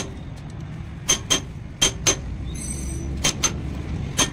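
Sharp metallic clicks with a bright ring, mostly in pairs about a quarter second apart, from a socket wrench turning the clutch pressure-plate spring bolts on a motorcycle engine.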